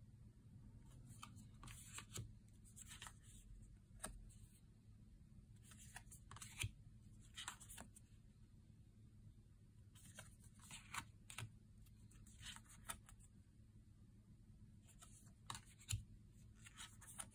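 Oracle cards being handled one at a time: picked up, slid off the deck and laid down on a velvet cloth, giving soft swishes of cardstock and a few light taps. They come in four groups a few seconds apart.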